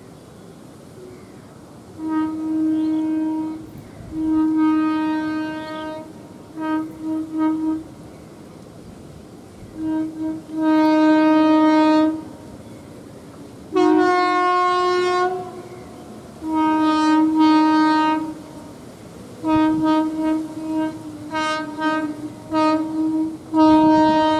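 Horn of an Indian Railways electric freight locomotive, sounded over and over as the train approaches: long blasts mixed with short toots, and one higher-pitched blast about midway. Between the blasts the low rumble of the approaching train is heard.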